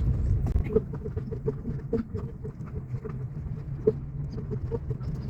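Car driving slowly on a dirt road: a steady low road-and-engine rumble with irregular light clicks and knocks from the rough surface, one sharper knock about four seconds in.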